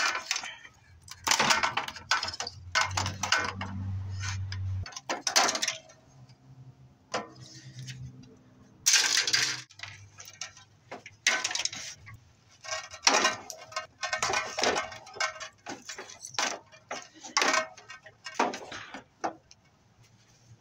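Irregular clicks, rattles and clatter of wiring and small metal parts being pulled and handled while a CRT television is taken apart by hand, with a low hum lasting about two seconds a few seconds in.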